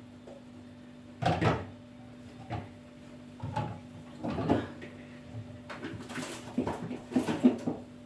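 Things being put into an open refrigerator: a scattering of short knocks, clatters and rustles as items are set on the shelves and in the door, with a faint steady hum underneath.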